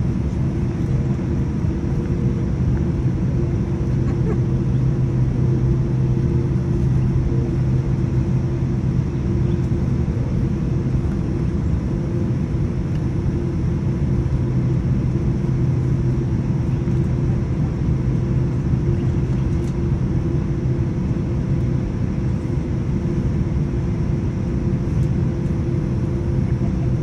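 Jet airliner cabin noise with the engines at low taxi power: a steady low rumble with a constant hum, heard through the cabin wall.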